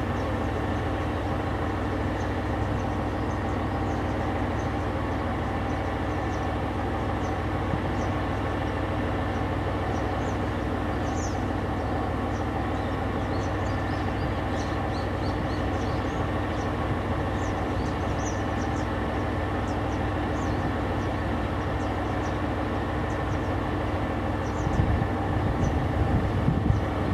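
Steady hum of a diesel railcar engine. In the last couple of seconds a louder low rumble comes in as the KiHa 47 diesel railcar draws near.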